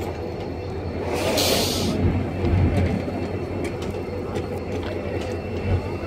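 Train of passenger coaches rolling slowly past on jointed track: a steady low rumble with scattered wheel clicks. A brief hiss comes about a second in.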